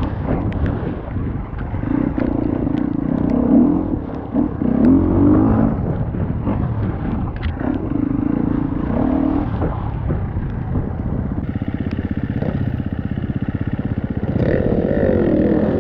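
Off-road motorcycle engine revving up and dropping back in repeated bursts, then running at a steadier pace for a few seconds before revving again near the end.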